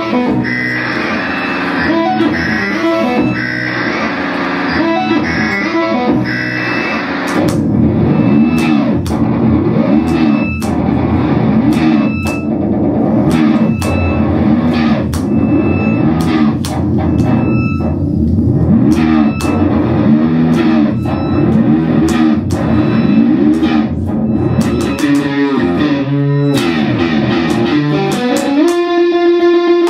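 Electric guitar playing experimental contemporary music through effects: dense chords at first, then from about seven seconds in, repeated swooping pitch bends that rise and fall over and over, cut by sharp clicks. Near the end a rising glide settles into one long held note.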